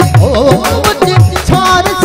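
Live Sindhi folk music: a harmonium and a man's singing voice over a steady hand-drum rhythm, its deep strokes dropping in pitch and struck a few times a second.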